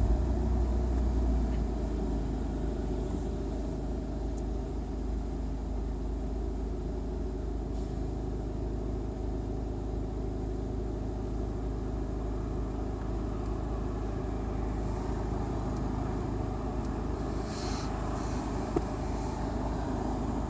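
Inside a Volkswagen Scirocco 2.0 TDI: steady low rumble of its four-cylinder turbodiesel engine with tyre and road noise.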